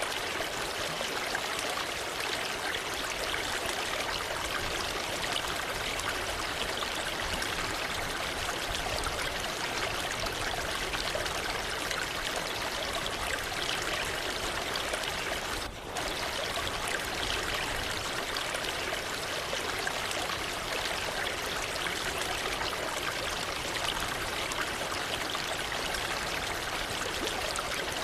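Waterfall: falling water rushing steadily, with a brief dip in level a little over halfway through.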